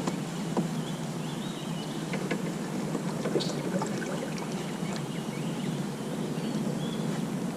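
Steady low water and hull noise around a fishing kayak, with scattered small knocks and clicks and faint bird chirps.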